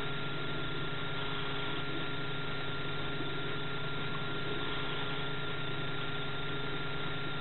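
A steady engine-like hum with several constant tones over an even hiss, unchanging throughout.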